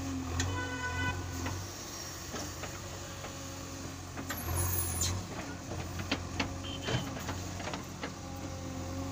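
JCB 3DX Eco backhoe loader's diesel engine running as the backhoe digs, swelling under load about four and a half seconds in. A short high whine sounds near the start, and scattered clanks and scrapes of the bucket in stony soil run through the middle.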